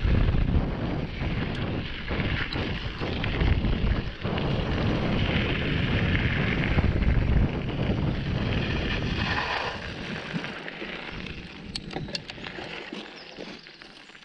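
Wind buffeting the microphone of a camera on a mountain bike ridden along a trail. It eases off after about ten seconds, and a few sharp clicks follow near the end.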